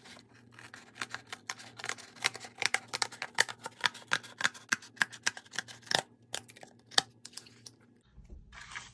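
Small scissors cutting through thick box cardboard: a quick, irregular run of short crisp snips that stops about seven seconds in.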